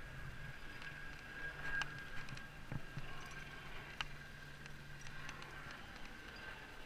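Light clicks and scuffs of a climber's hands and feet moving on rock, a sharp click about two seconds in and another about four seconds in, over a faint steady hum.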